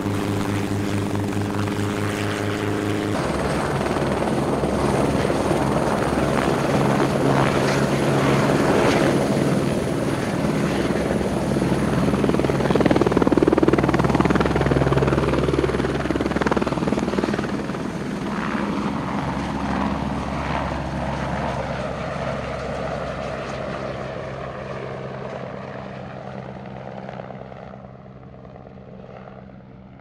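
A Schweizer 269C light piston helicopter hovering, with a steady engine drone, cuts after about three seconds to a Eurocopter AS350 B3 turbine helicopter lifting off and flying past. Its rotor chop and high turbine whine swell to their loudest midway, then fade as it flies away.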